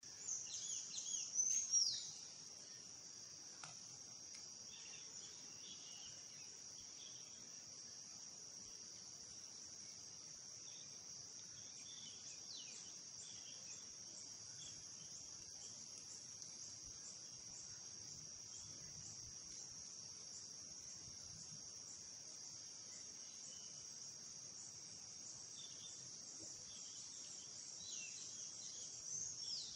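Steady high-pitched insect chorus, with louder bursts of quick falling bird chirps in the first two seconds and again near the end.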